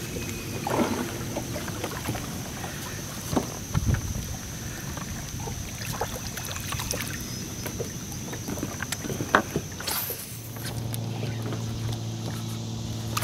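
Sounds aboard a small fishing boat on the water: a steady hiss of wind and water, with scattered light knocks and clicks. From about ten seconds in, a steady low hum joins.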